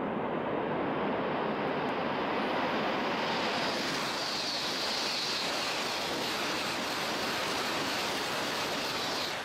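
Shinkansen train (an E3 series set coupled to an E2 series set) passing at high speed: a loud, even rush of air and wheel noise, with a sharp high hiss from about four seconds in that cuts off as the train clears at the end.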